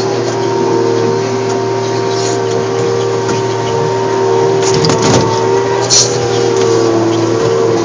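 Tigercat 724E feller buncher's diesel engine and hydraulics running steadily with a constant whine, heard from inside the cab, with a few short knocks and clatters around five and six seconds in.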